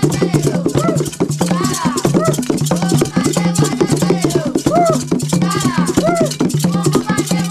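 Chewa Gule Wamkulu dance music: a fast, dense percussion rhythm driven by shaken rattles over a steady low drone, with voices calling in repeated rising-and-falling glides.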